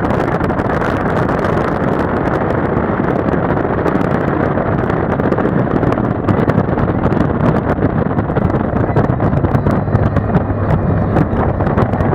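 Wind rushing over the microphone of a motorcycle on the move, steady and loud, with the motorcycle's engine running underneath.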